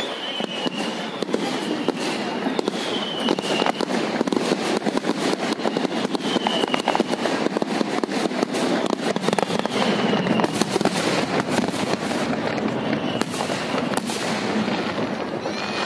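Fireworks display: a rapid, unbroken barrage of aerial shells bursting and crackling, with short high whistling tones recurring every couple of seconds.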